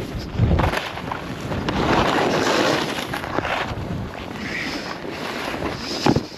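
Skis scraping and chattering over a hard, thin snow base, with wind buffeting the microphone. A low thump comes near the start and a sharp knock near the end.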